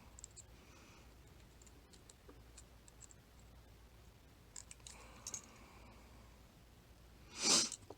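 Faint scattered clicks and scrapes of small tools working at the retaining clip on the back of a high-security cam lock, with a few sharper ticks past the middle. Near the end, a short, louder rush of noise.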